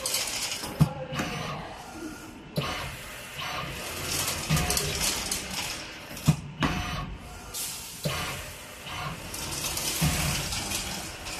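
Automatic nut-fastening machine at work: hissing air releases from its pneumatic screwdriver head and several sharp mechanical clicks as the spindle moves over the nuts.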